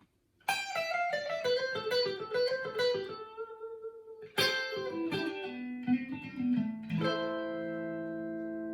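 Clean electric guitar, a Stratocaster through a Fender Pro Reverb amp, played through a Signal Cheyne B6K OTA-style compressor with its blend turned back toward the dry signal to restore picking dynamics. A quick run of single notes and a second phrase, then a chord struck about seven seconds in and left to ring out.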